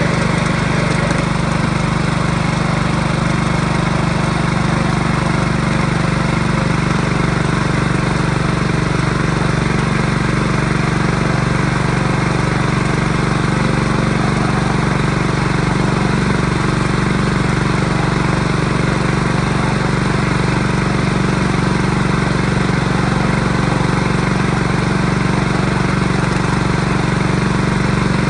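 A small engine running steadily at an even speed, a constant hum with no change in pitch or level.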